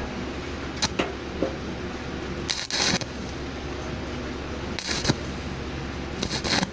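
Shielded metal arc welding with an E6013 1/8-inch electrode at 60 amps, spot-welding thin steel matting: a steady hiss with four short, louder bursts, about a second in, near three seconds, near five seconds and near the end.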